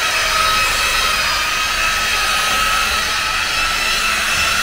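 Electric rotary car polisher running with a steady high whine, its foam pad buffing rubbing compound and wax polish into a car's paintwork.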